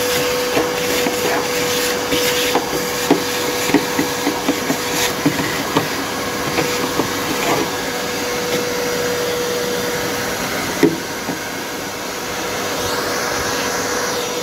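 Vacuum cleaner running with a steady humming whine over its hiss, sucking ash and dirt out of a fire-damaged car's inner wing and engine bay; small bits click and rattle as they are drawn up the nozzle, with one louder knock about eleven seconds in.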